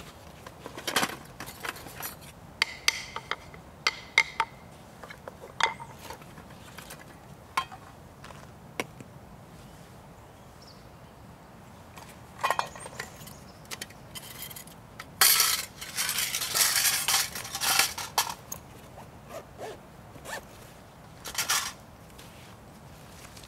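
Camping gear being handled: scattered clicks and clinks, with a longer rasping stretch of about three seconds a little past the middle.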